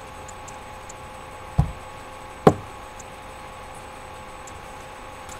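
Two short knocks about a second apart, the first dull and low, the second sharper, over a steady electrical hum with faint ticking.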